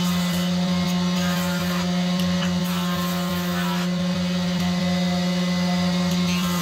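Combination jointer and table-saw machine running with a steady, even hum while a short piece of wood is fed along the fence across the jointer's cutterhead.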